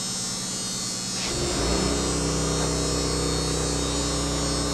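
Steady electrical hum with a faint high whine. About a second in, a louder, deeper hum with several steady tones comes in and holds.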